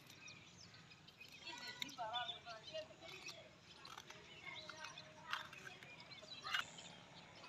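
Faint outdoor background: distant voices and bird chirps, with a couple of soft clicks in the second half.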